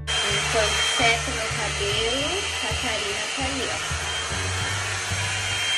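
Hair dryer blowing at full speed: a loud, steady rush of air with a thin high whine over it.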